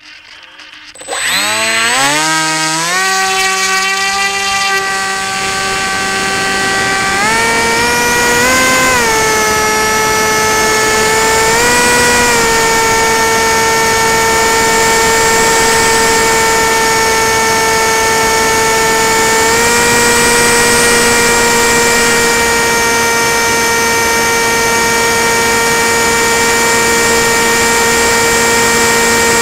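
Multistar Elite 2306-2150KV brushless motor and propeller on a Tek Sumo flying wing, picked up by the onboard camera. It spins up with a rising whine about a second in, then runs steadily at a high pitch, stepping up and dipping in pitch several times with throttle changes in flight.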